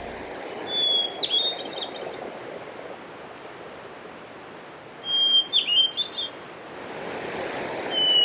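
A songbird singing three separate phrases, about a second long and a few seconds apart. Each phrase opens with a clear held whistle and breaks into quick, higher warbling notes, over a steady rushing hiss.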